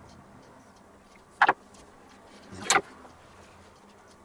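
Two brief handling noises, a scrape or rustle each, about a second apart, as utensils and food packaging are moved about on a kitchen counter.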